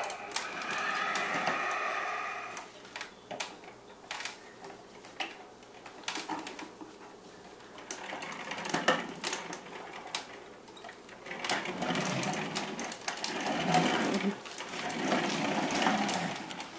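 Hard plastic wheels of a ride-on toy car rolling and rattling over wooden floorboards, in uneven stretches with scattered clicks and knocks.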